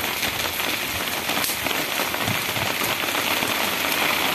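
Steady rain falling on a wet cobblestone street: an even hiss with a few louder drops ticking through it.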